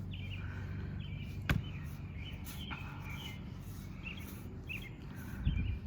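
Birds chirping in short, repeated calls over a steady low hum, with a single sharp knock about one and a half seconds in.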